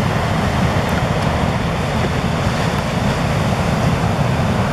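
Ocean surf: a steady wash of breaking waves, with wind noise on the microphone.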